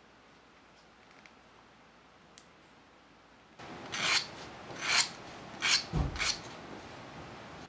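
A sandpaper sanding stick worked against a small strip of wood: four short sanding strokes in about two and a half seconds, starting about halfway in, with a soft knock among them.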